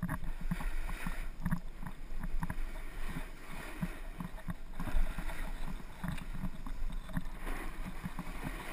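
Snowboard sliding and scraping over packed, tracked snow in a run, with irregular bumps and chatter as the board rides over the ruts, and wind on the microphone.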